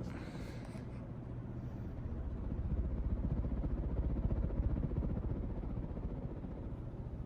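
Fasco Gulf Stream ceiling fan running on high: a steady low rumble of motor and moving air that swells a little in the middle.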